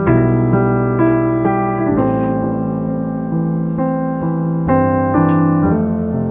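Background piano music: a melody of single notes changing about every half second over a low bass line.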